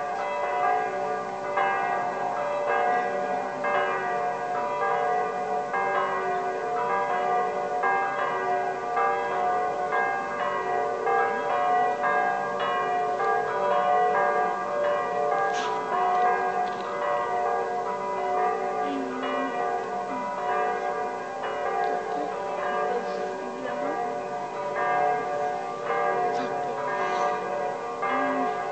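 Church bells pealing, many bells struck in quick succession so that their ringing tones overlap continuously.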